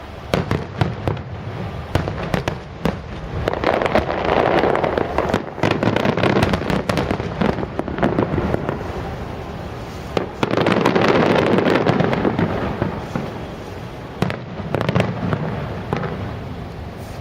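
Aerial fireworks bursting in quick succession, sharp bangs one after another. Twice, a second or so of dense crackling swells up and lasts several seconds: once about four seconds in, and again about ten seconds in.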